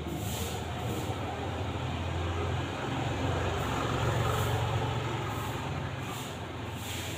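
A low, steady rumble like a passing vehicle, swelling about four seconds in.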